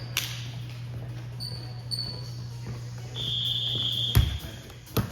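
Basketball game on a gym floor: sneakers squeak, briefly twice and then once longer, and the ball bounces hard about four seconds in and again near the end. A steady low hum runs underneath.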